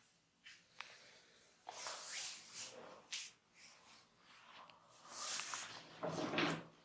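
Massage strokes: hands rubbing and scratching over skin, heard as short hissing strokes with a few small clicks. The loudest and fullest stroke comes near the end.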